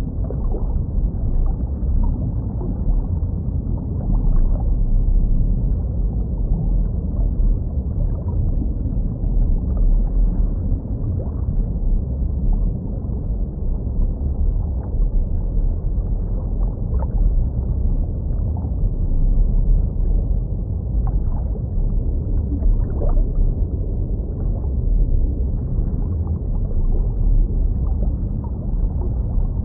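Muffled underwater sound of a jellyfish tank: a steady low rumble of moving water, with gurgling and faint scattered bubble ticks.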